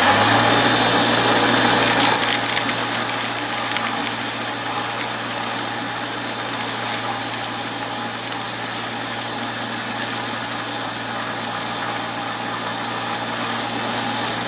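Bench grinder running with a diamond dressing tool held against the face of its grinding wheel: a steady motor hum under a continuous hiss as the diamond cuts the rounded, metal-loaded wheel back to a flat, square face. A high thin whine joins about two seconds in.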